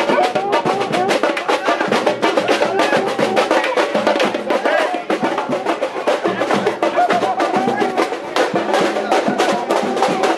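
Samba bateria playing a fast, dense beat on drums, with a cuíca's wavering squeaks over the drumming.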